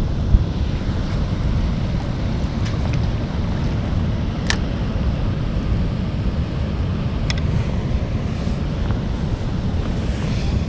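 Steady wind buffeting on the microphone, with two sharp clicks about four and a half and seven seconds in.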